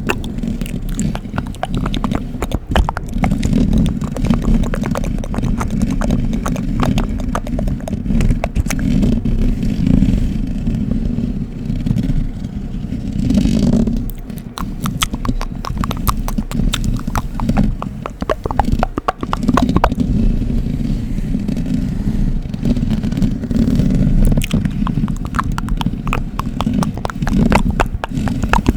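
Close-miked ASMR scratching: a steady low rubbing rumble with dense, rapid crackling clicks throughout.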